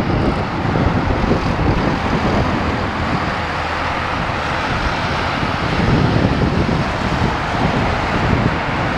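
Jet airliner engines running, a steady rushing rumble, with wind buffeting the microphone.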